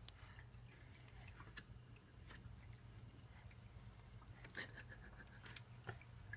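Near silence: room tone with a faint steady low hum and a few faint scattered clicks and small rustles.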